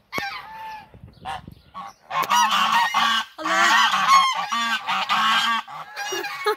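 A flock of domestic geese honking, several birds calling over one another. A few scattered calls at first, then loud, dense honking from about two seconds in.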